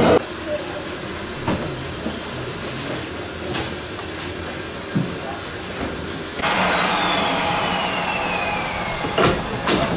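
Ffestiniog Railway No. 10 double Fairlie steam locomotive standing with steam escaping near its cylinders and wheels: a steady background hiss with a few light clicks and knocks. About six seconds in, a louder steam hiss starts, with a thin tone that falls slowly in pitch.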